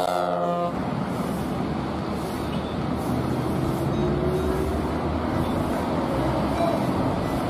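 A bus air horn holds a steady multi-tone chord that cuts off under a second in. It is followed by the steady road noise of a coach driving along the road, its engine note rising briefly partway through.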